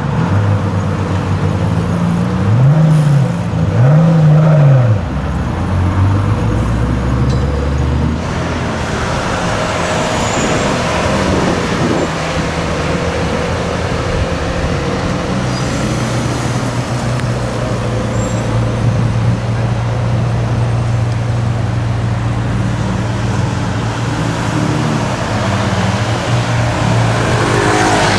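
Supercar engines revving in a few quick rising-and-falling blips in the first five seconds, then running steadily as the cars pull past in slow city traffic, with another rising rev near the end.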